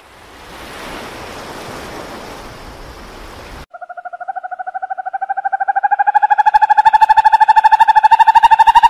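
A steady hiss, then about three and a half seconds in a snowy owl starts calling: one long, rapidly pulsing trilled note that rises slightly in pitch and grows louder.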